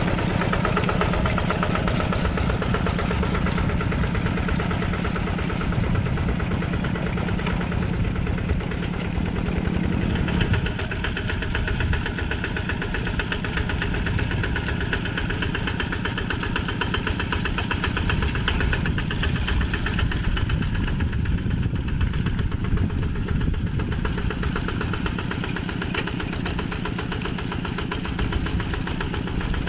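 Single-cylinder diesel engine of a two-wheel hand tractor running steadily under load while it works through wet rice-paddy mud. The engine note changes about ten seconds in.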